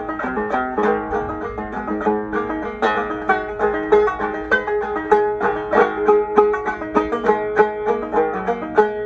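Solo banjo playing a brisk traditional tune, a fast, steady stream of plucked notes.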